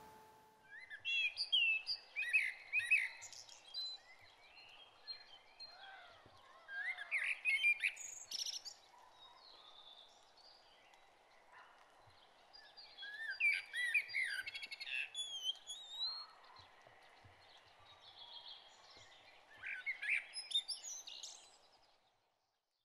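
Songbirds singing in four bouts of quick, high warbling chirps, with a faint steady background hiss; the sound fades out near the end.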